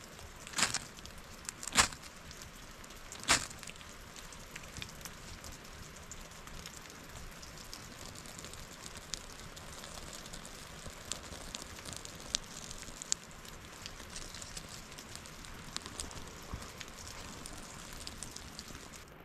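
Steady rain hiss with a wood fire crackling in small scattered pops. Three sharp cracks come in the first few seconds.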